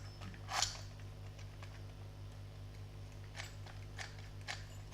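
A few light clicks and rattles from a cheap five-pin doorknob lock being handled, its loose, wobbly parts knocking: one sharper click about half a second in, then a cluster of smaller clicks near the end, over a steady low hum.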